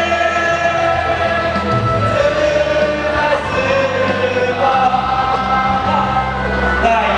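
A choir singing a school song in long, held notes over a steady low accompaniment.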